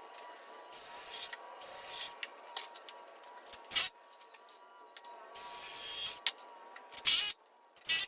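Power tool fastening wooden bench back-rest slats: short bursts of hissing air, each about half a second, with three sharp loud cracks near the middle and the end.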